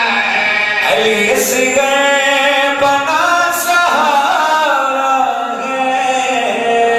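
A man singing a devotional recitation in a melodic chant into a microphone, with long held notes that slide between pitches.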